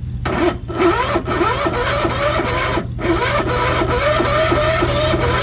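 Sears ST12 garden tractor's electric starter cranking the cold engine, with a regular beat of about four compression strokes a second and no firing. The cranking stops briefly about three seconds in, then resumes.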